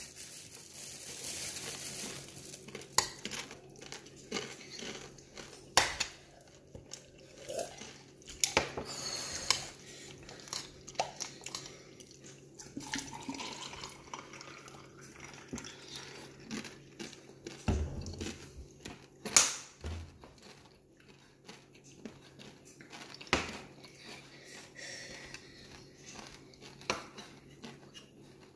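Fork clinking and scraping against a bowl of noodles, with scattered sharp clicks and knocks. About halfway through, water is poured from a bottle into a glass mug with ice.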